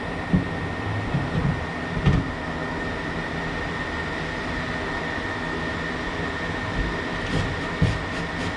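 Steady mechanical hum with a thin, steady high whine, broken by a few short knocks: one about half a second in, one at about two seconds, one near the end.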